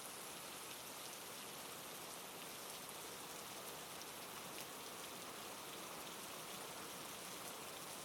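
Steady rainfall ambience, an even hiss with many small drops pattering.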